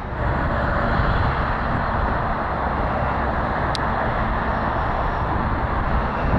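Jet engines of a UPS Boeing 767 freighter running on the ground, a steady rush over a low rumble, with one brief high click a little under four seconds in.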